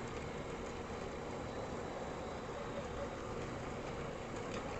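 Honda ATV running steadily along a gravel road: an even engine drone under road and wind noise.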